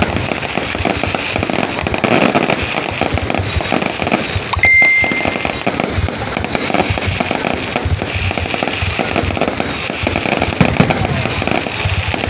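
Fireworks going off in rapid succession: a dense, continuous crackle of many overlapping bangs, with a brief steady high tone a little before halfway through.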